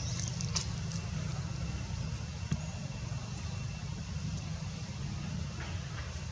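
Steady low outdoor background rumble, with a few faint high chirps in the first half-second and again near the end.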